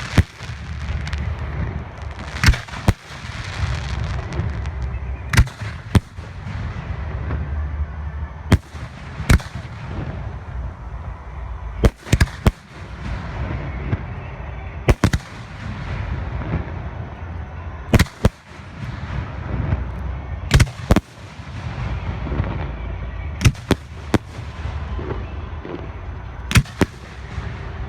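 Professional aerial fireworks display: loud, sharp shell bursts come every one to three seconds, often in quick pairs. A steady rumble of lifts and breaks runs between them.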